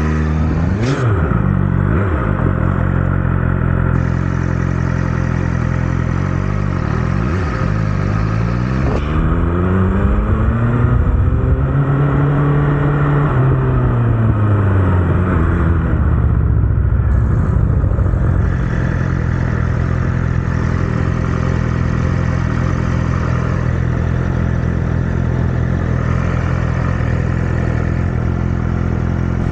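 Motorcycle engine running under way, its revs wavering up and down in the first couple of seconds, climbing and easing back in the middle, then holding steady.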